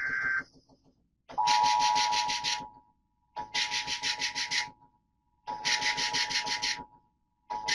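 Emergency Alert System SAME data bursts: four bursts of screechy digital tones, each about a second and a half long and about two seconds apart, the encoded header that opens a broadcast warning. A steady tone cuts off about half a second in.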